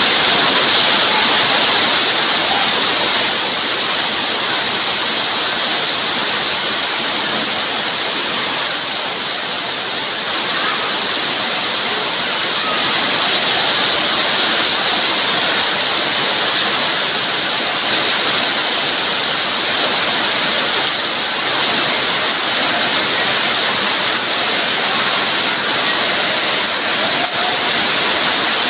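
Heavy rain pouring steadily onto a wet yard, a loud, even hiss that doesn't let up.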